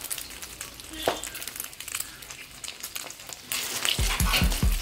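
Egg-coated beef meatballs deep-frying in hot coconut oil, sizzling and crackling with scattered pops. The frying grows louder near the end.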